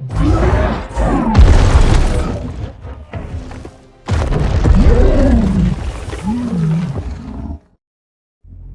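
Two long, loud roars from Kong, the giant ape of the film's sound design, each with a bending, wavering pitch; the second cuts off suddenly near the end, leaving a brief silence.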